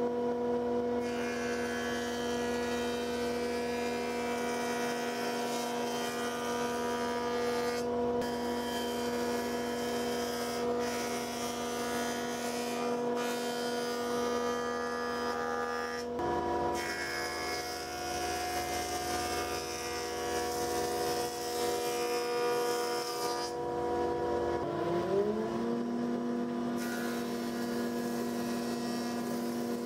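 Combination jointer-planer running with a steady whine and a hiss. The sound changes about sixteen seconds in. About twenty-four seconds in, a motor spins up with a rising whine, then runs steadily.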